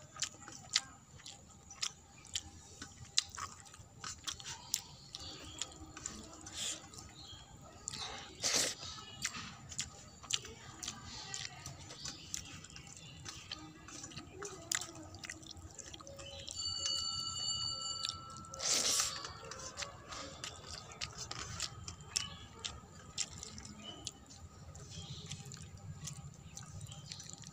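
Fingers scraping and mixing rice and dal on a steel plate, with chewing and small wet mouth clicks from eating by hand. A brief high steady tone sounds once around the middle.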